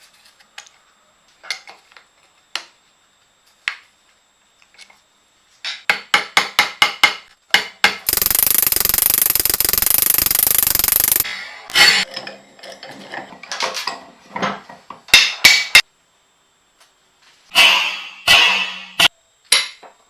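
Metal tool work on a cast-iron vise: scattered light clicks, then a quick run of sharp taps, about six or seven a second, then a loud steady rushing noise for about three seconds, followed by more knocks and another short noisy burst near the end.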